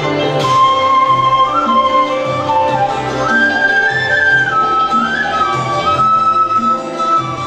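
Bamboo transverse flute (sáo) playing a slow melody of held notes with slides between them, over a sustained low accompaniment.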